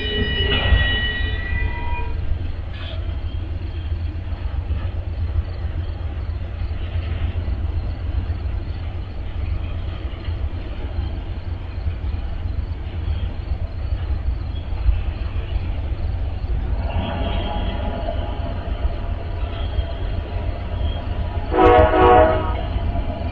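Steady low rumble of trains with a short train horn blast near the end, the loudest sound, and a fainter horn-like tone a few seconds before it.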